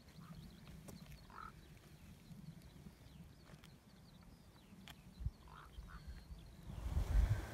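Faint open-air ambience with small birds chirping in quick, high calls throughout, and a couple of short, lower distant calls. Near the end, wind starts buffeting the microphone with a low rumble.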